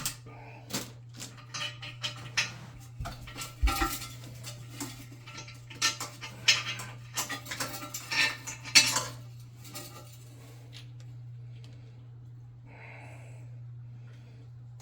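Clinking and clattering of hard parts and tools being handled during a toilet repair, many sharp knocks for the first nine seconds or so, then only a few. A steady low hum runs underneath.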